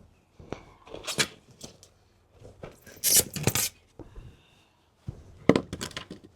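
Potting soil being scooped and moved into a pot by hand: irregular scrapes and rustles in several short clusters with quiet gaps, the loudest about three seconds in and near the end.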